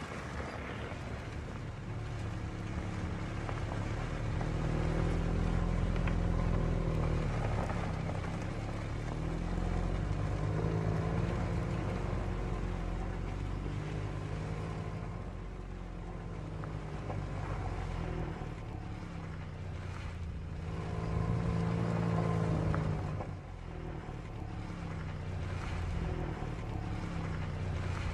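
FPV drone's motors and propellers buzzing, the pitch rising and falling as the throttle changes, with wind across the drone-mounted camera.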